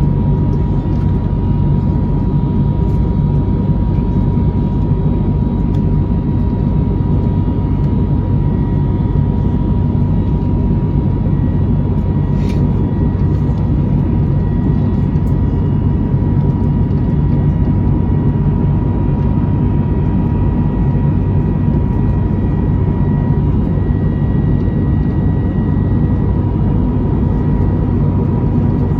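Cabin noise inside an Airbus A321neo in flight after takeoff: the steady drone of its Pratt & Whitney geared-turbofan engines and airflow, with a low rumble and a thin steady hum over it. A brief click about twelve seconds in.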